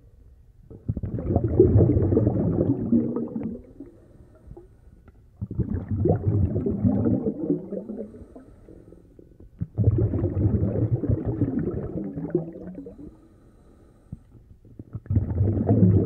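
Four bursts of low underwater bubbling, each starting suddenly and fading over about three seconds, coming roughly every four and a half seconds: a scuba diver's exhaled bubbles in a breathing rhythm.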